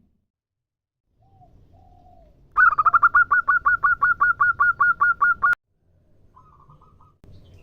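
Zebra dove (perkutut) calling: after a couple of faint notes, a loud, rapid run of about six short notes a second for about three seconds that cuts off suddenly, then a few faint notes near the end. Per the title this is a hen's call to a male.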